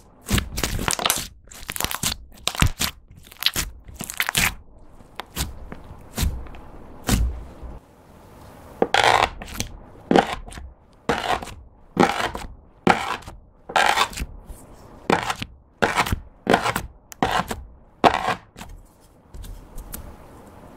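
Hands squishing and kneading a sticky metallic slime, a run of irregular squishes. From about eight seconds in, a knife presses into the flattened slime about once a second, around ten cuts, each a short sticky squish.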